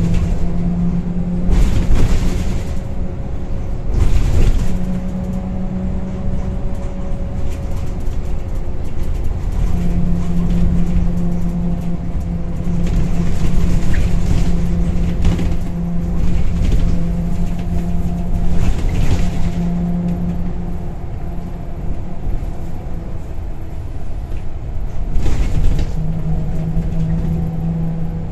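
Scania L94UB bus's nine-litre five-cylinder diesel and ZF automatic gearbox heard from inside the passenger saloon while under way: a steady low drone that drops away a few times and comes back. Now and then there are short knocks and rattles from the body.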